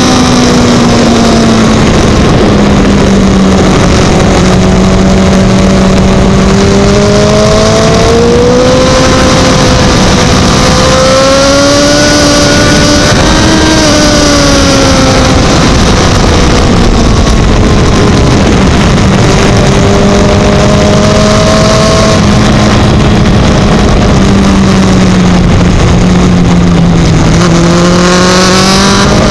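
Sport motorcycle engine heard from an onboard camera at racing speed, its pitch rising and falling slowly through the corners, under loud, steady wind and road noise. Near the end the engine pitch dips and then climbs again.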